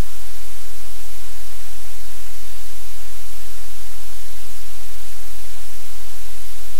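Loud steady hiss like static or white noise, with a steady low hum underneath.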